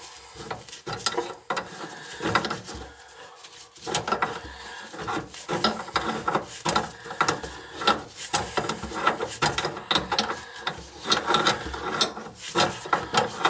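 Wrench working the stem nut of an old under-sink shutoff valve, with many quick, irregular metal clicks and scrapes as the valve is taken apart to get at its worn-out washer.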